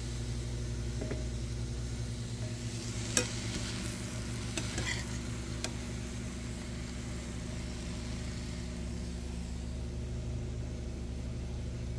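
Chicken and vegetable stir-fry sizzling in the pan over a steady low hum, while a metal spatula scoops it out. The spatula clicks against the pan and plate a few times, most sharply about three seconds in.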